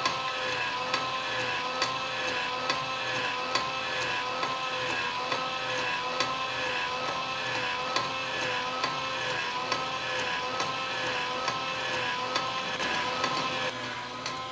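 The kinetic sculpture's small electric motor and linkage running: a steady whine that wavers once per cycle, with a click about every 0.9 seconds as the mechanism goes round.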